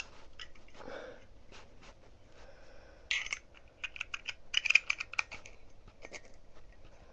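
Small metallic clicks and taps of a Zippo-style lighter's wick insert being pushed back into its metal case, with a quick cluster of clicks from about three to five and a half seconds in.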